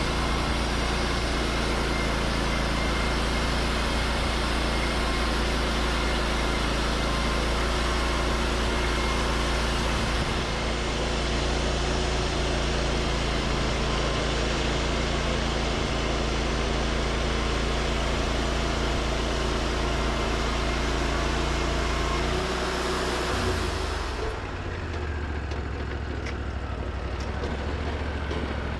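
Wood-Mizer LT40 portable band sawmill running under load, its engine and band blade cutting through a pine log with a steady, dense noise. About 23 seconds in the cutting noise stops and the engine drops to a lower, quieter idle.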